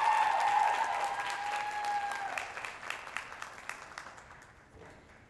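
Audience applauding as the music's last held string note stops about two seconds in; the clapping then thins out and dies away near the end.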